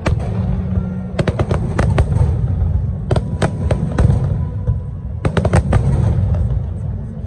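Fireworks going off: clusters of sharp bangs and cracks about a second in, around three to four seconds in and again about five seconds in, over a continuous low rumble.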